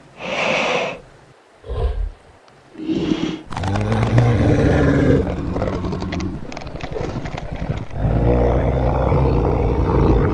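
Dubbed-in dinosaur roar and growl sound effects: a few short bursts, then two long, deep growls of several seconds each.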